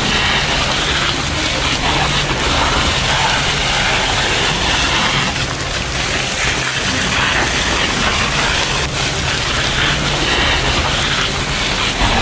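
Steady rushing hiss of a water-jet sound effect, like a fire hose spraying, with a low rumble underneath.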